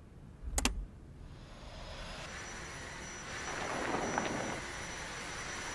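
A sharp click, then a Dyson V6 cordless stick vacuum running with a steady high whine. It gets louder about halfway through as the soft roller floor head sweeps debris off a hard floor.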